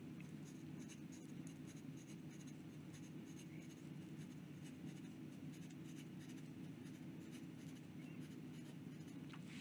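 Folded nib of a vintage 1950s Orienta fountain pen scratching across notebook paper in quick writing strokes: a faint, rapid run of short scratches.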